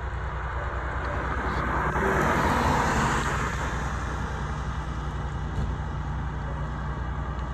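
Fire engine's engine running steadily with a low rumble, with a rush of noise that swells and fades about two to three seconds in.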